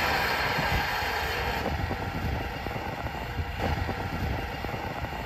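Atlas amphibious ATV's engine idling with a low, uneven rumble. A loud hiss over it fades out about a second and a half in.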